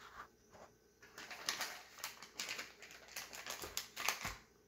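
Plastic food packaging crinkling and rustling in irregular bursts as pepperoni slices are pulled from it, with a soft thump near the end.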